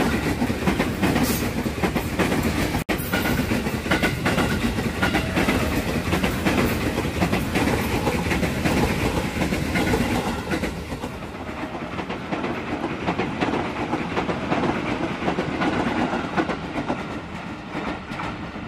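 JR 205 series electric commuter trains passing close by: a steady rumble with the wheels clacking over the rail joints. The sound breaks off for a moment about three seconds in. From about ten seconds it turns duller and quieter as a train approaches from farther off.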